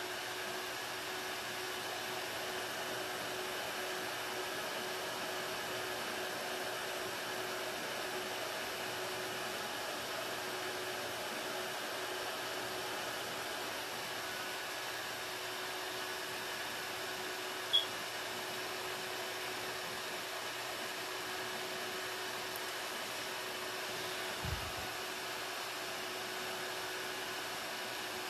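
Makartt ZC-044 nail fan dryer blowing cool air over hands, a steady whir of air with a low, even motor hum. A brief tick sounds about eighteen seconds in and a soft low thump near the end.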